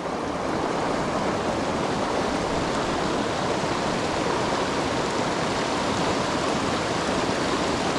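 Mountain stream water rushing over rocks in a steady wash of noise.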